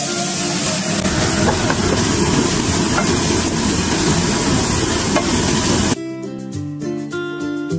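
Sliced onions sizzling in a frying pan as a wooden spatula stirs them, with a few light taps, over the steady rush of a kitchen range hood fan. About six seconds in it cuts off suddenly to plucked-string background music.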